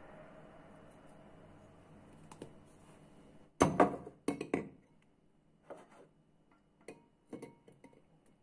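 Sharp knocks and clinks of a stick blender's metal shaft being set down into a glass mixing bowl, loudest in a quick cluster about three and a half seconds in, followed by a few lighter clicks and taps of kitchen utensils.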